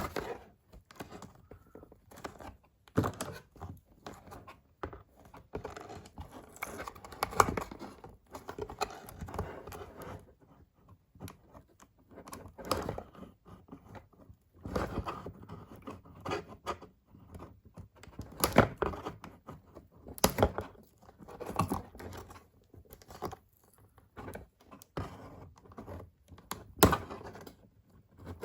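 Toy packaging being opened and handled: irregular tearing, crinkling and small knocks.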